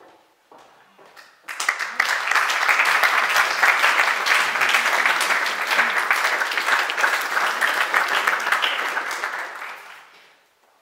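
Audience applause: a few scattered claps at first, then from about a second and a half in the whole hall claps steadily, dying away near the end.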